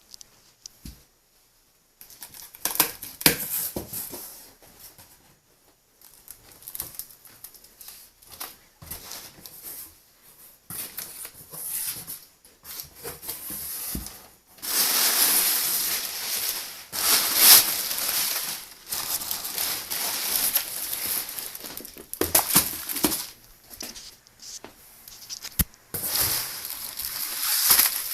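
Crinkling and rustling of plastic and paper packaging being handled, in irregular stretches, with a louder, denser stretch in the middle.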